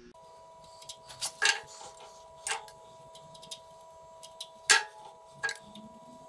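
Scattered light clicks and taps from hand work as anti-seize is brushed onto a Case tractor's splined PTO shaft. The loudest is a sharp click nearly five seconds in, over a faint steady two-note hum.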